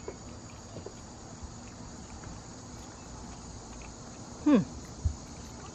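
Steady chirring of crickets and other insects. About four and a half seconds in comes a short falling 'mm' hum from a person, which is the loudest sound here, followed by a brief low thump.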